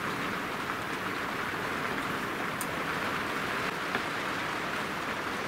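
Steady background hiss with a couple of faint light clicks, one near the start and one about halfway through.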